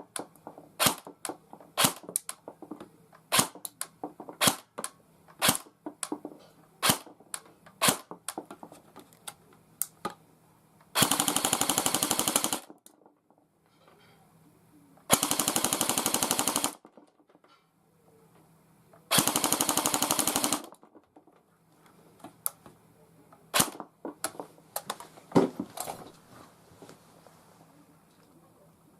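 S&T HK416 electric airsoft gun test-firing: about ten single semi-auto shots roughly a second apart, then three full-auto bursts of about a second and a half each, then a few more single shots.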